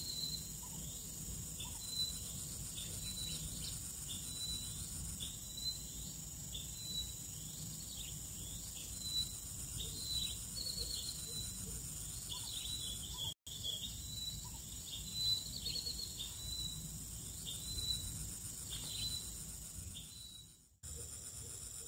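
Birds chirping in short, repeated high calls, several sweeping downward, about once a second, over a steady high insect drone.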